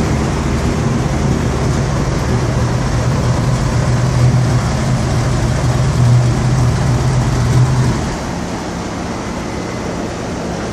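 Mitsubishi 3000GT's V6 engine idling steadily, a loud even drone that drops somewhat about eight seconds in.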